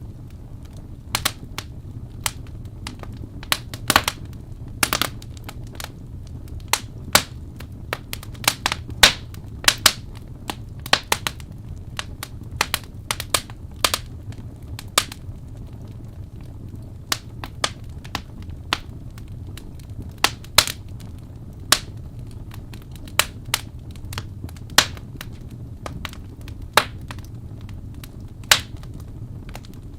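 Wood fire in a fireplace crackling: frequent sharp pops and snaps at irregular intervals, some in quick clusters, over a steady low rumble of the burning.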